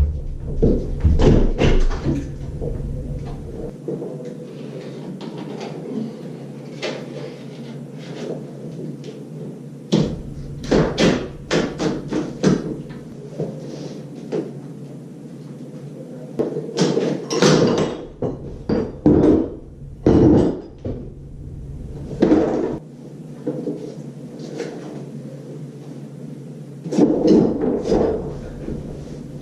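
Irregular knocks, clanks and thuds of a sliding shower door and its frame being worked loose and taken off.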